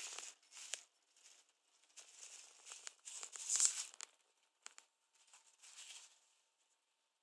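Sticky tape being pulled off the roll in a handful of short, hissing tearing pulls, the longest and loudest about three and a half seconds in.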